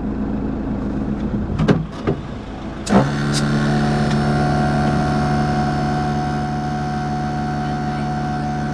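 Motorhome's engine idling with a few knocks, then about three seconds in the air-suspension compressor switches on and runs with a steady hum. It is pumping the air suspension to maximum height to lift the grounded motorhome clear.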